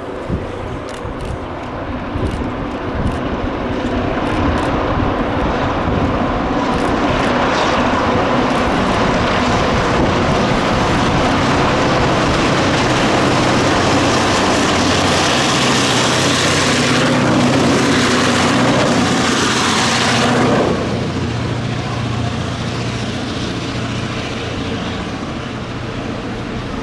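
Three EMD GP38-2 diesel locomotives, each with a 16-cylinder two-stroke 645 engine, barking under power as they approach and grow louder. About twenty seconds in the engine sound drops off abruptly as they pass beneath, leaving the rumble of empty coal hopper cars rolling by.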